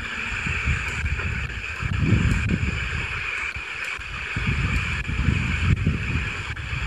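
Steady static hiss from a Grundig G2 Reporter radio's speaker as it is stepped up the FM band through empty frequencies, with wind gusting on the microphone.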